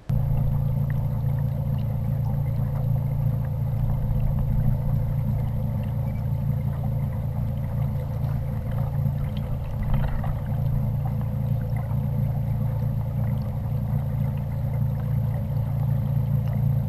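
A small boat motor running steadily with a low, even hum.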